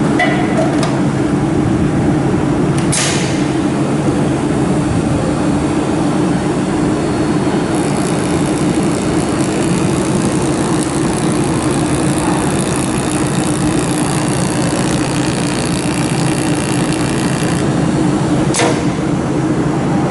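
500 W automatic laser welding machine running with a steady mechanical hum. A brighter hiss joins for about ten seconds in the middle, and there are two sharp clicks, one about three seconds in and one near the end.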